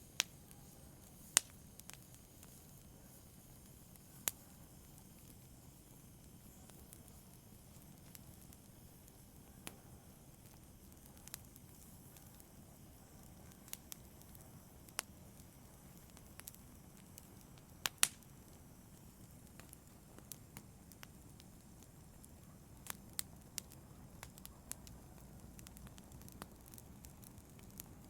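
Wood fire burning in a fireplace: a faint steady low rush with sharp, irregular crackles and pops, a few louder snaps among them.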